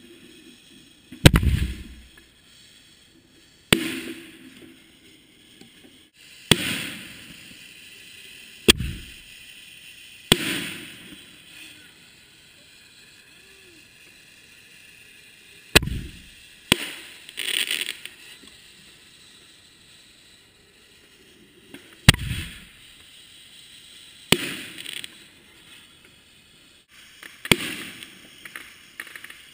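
A 60-tube fireworks battery firing shots one at a time, close up: about eleven sharp launch bangs, each trailed by a hiss that fades within a second or two. There are pauses of a few seconds between some shots, and a quick run of three shots a little past the middle.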